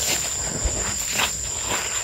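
Soft scraping and rustling of a hand digging into dry soil and leaf litter, with a few faint short scrapes, over a steady high-pitched thin tone.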